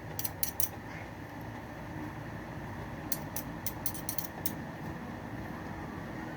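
Eating sounds: a few quick clicks and smacks just after the start and a longer run of them from about three to four and a half seconds in, over a steady low background rumble.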